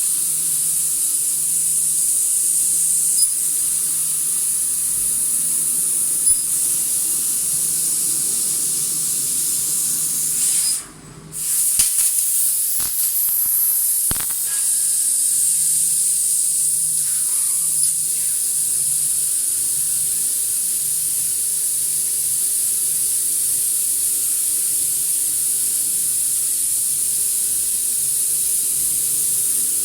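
Steady high-pitched hiss over a faint low hum, which drops out briefly about eleven seconds in.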